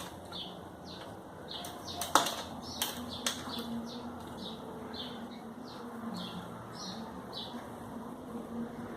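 A small bird chirping over and over, one short high note about every half second, with a few sharp clicks between two and three and a half seconds in, the loudest just after two seconds. A faint steady low hum runs underneath.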